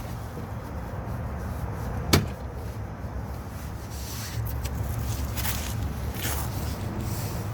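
Stiff plastic wheel-well liner being worked back into place by hand: one sharp click about two seconds in, then scraping and rubbing of plastic, over a steady low rumble.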